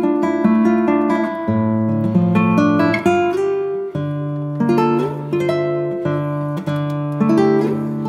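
Background music: an acoustic guitar playing plucked notes over changing chords, each note ringing and fading.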